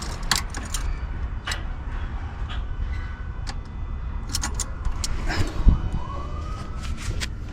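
VW Mk3's swapped-in VR6 engine cranking over on the starter without catching, with scattered clicks and a rising whine near the end; it cranks but won't fire, a no-start the owner suspects is a fuel or electrical fault.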